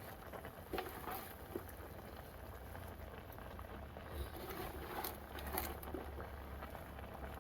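Water pattering and bubbling, with a few small clicks and knocks.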